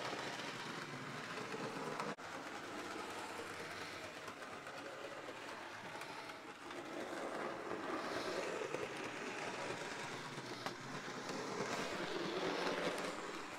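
Bachmann HO scale Origin James model locomotive running along the layout track: a quiet, steady running noise of its electric motor and wheels on the rails, with a few light clicks.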